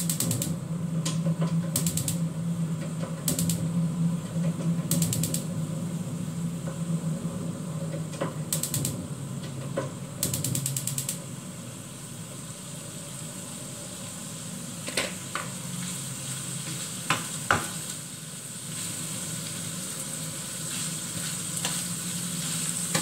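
Gas hob's piezo igniter clicking in short rapid runs, several times over the first ten seconds or so, until the burner lights. Beef pieces sizzle in a wok throughout, and later there are a few sharp knocks of cooking utensils against the pan.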